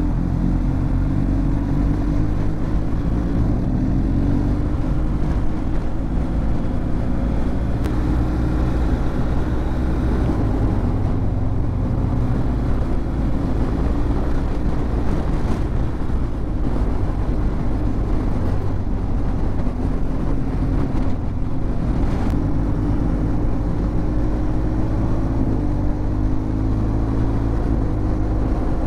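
Motorcycle engine running on the move, with a steady low rumble; the engine note drops in the first few seconds and climbs again near the end.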